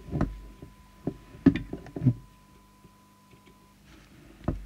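Scattered clicks and knocks from hands and a trimming tool on the open metal chassis of a CB radio as a preset is adjusted, with a faint steady tone that stops about three-quarters of the way through.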